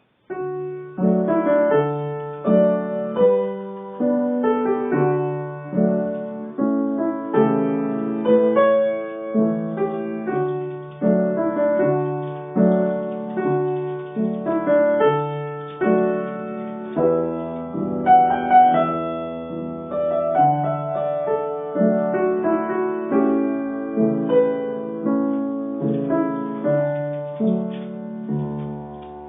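Solo piano playing a slow improvised piece in broken chords, starting a moment in. Each note or chord is struck and left to ring and fade before the next, about one a second.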